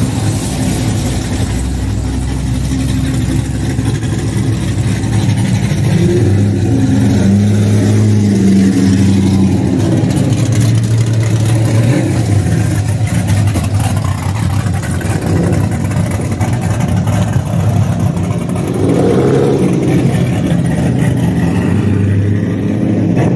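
Car engine running at low speed, a steady low hum that shifts in pitch a few times as it revs lightly.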